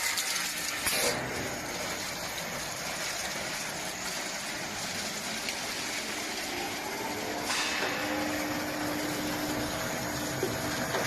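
Snack-processing line machinery running with a steady noise. A steady hum joins about eight seconds in, and the sound changes abruptly twice where the footage appears to be cut.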